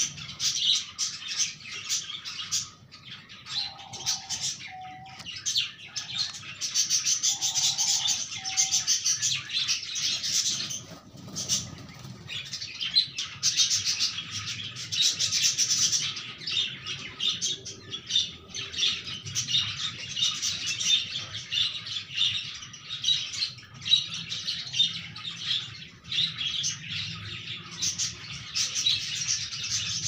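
Baby parrot chick begging for food: rapid, continuous high-pitched chirping with a few brief pauses.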